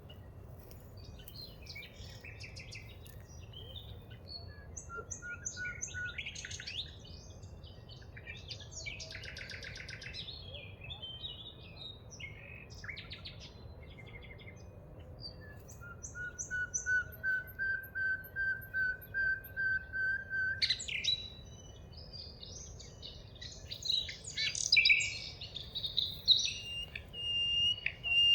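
Several songbirds singing and chirping together. About halfway through, one bird gives a long run of quick repeated notes for about four seconds, and near the end a steady high whistled note begins.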